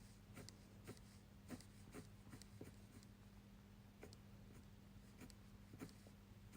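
Fineliner pen with a 0.4 mm nib drawing short lines on paper: faint, quick scratches at irregular intervals, roughly two a second, over a low steady hum.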